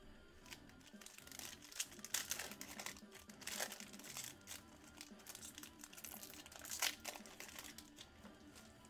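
Foil wrapper of a Panini Select trading-card pack crinkling and tearing as it is ripped open by hand, in quick irregular crackles.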